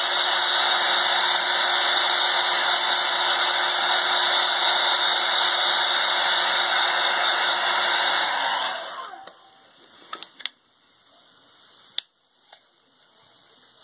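Conair handheld hair dryer blowing on its hottest setting, a steady rushing whir with a faint hum, heating a pill-bottle label to soften the adhesive. It is switched off about nine seconds in and winds down, followed by a few small clicks of handling as the label is peeled off the plastic bottle.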